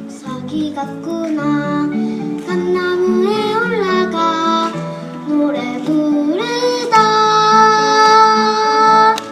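Singing to acoustic guitar accompaniment: a light, high voice sings a melody line, then rises into one long held note about six and a half seconds in that stops just before the end.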